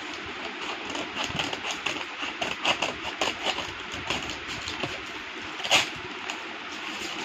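Scissors snipping through a brown paper mailer bag while the paper crinkles and rustles in the hands, in short irregular crackles; one sharper, louder crackle about five and a half seconds in.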